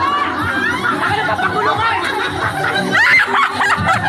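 Several people laughing together, their laughs and voices overlapping, with one louder rising cry about three seconds in.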